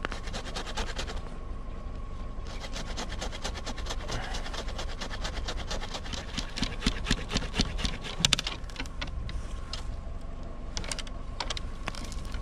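A blunt hand saw cutting through a young ash stem, a rasping run of quick strokes from about two seconds in to about nine seconds, heaviest in the last couple of seconds of cutting, then a few scattered clicks.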